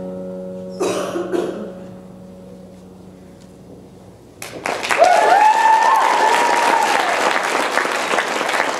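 The last held chord of the performance music fades out, then about five seconds in the audience breaks into applause and cheering, with a loud whoop over the clapping.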